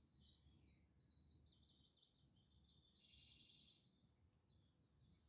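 Faint birdsong: a busy run of short, high chirps over a low steady background rumble.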